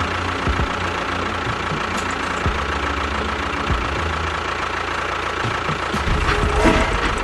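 A small engine running steadily at idle, just after being started, with an even low putter; it gets a little stronger about six seconds in.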